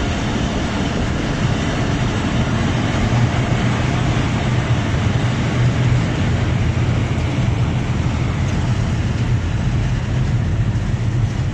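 Steady rumble and rush of a moving passenger train, wheels running on the rails, heard from an open carriage window.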